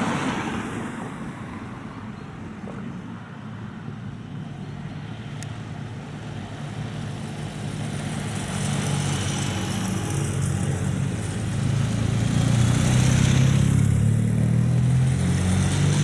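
A police car passes close at the start with a swell of tyre and engine noise, then escort motorcycles approach and pass, their engine note getting steadily louder and loudest near the end.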